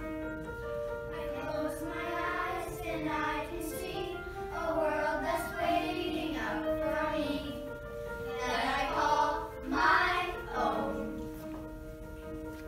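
A children's choir sings with unison voices over an accompaniment of steady held notes. The singing comes in about a second in, swells loudest shortly before the end, then stops, leaving the held accompaniment notes.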